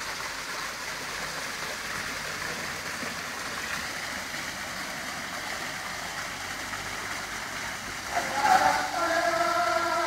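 Water spilling off the ledge of an artificial rock waterfall into a shallow pool, a steady splashing. About eight seconds in, louder steady tones that step in pitch come in over it.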